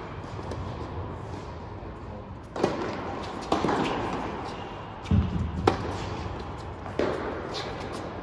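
Tennis ball struck back and forth by rackets and bouncing on an indoor hard court: about five sharp pops, spaced roughly a second apart, each echoing in a large hall.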